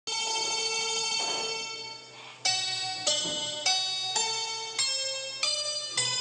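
Instrumental music: a held chord that fades out, then a melody of single ringing, bell-like notes struck about every 0.6 seconds.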